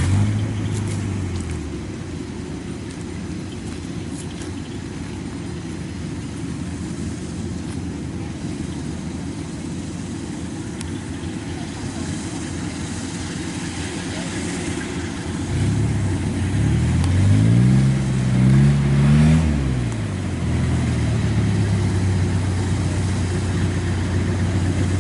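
Kubota DC-93 combine harvester's diesel engine running under load while cutting rice in a waterlogged paddy. Past the middle its pitch rises and falls a few times, then settles into a steady drone.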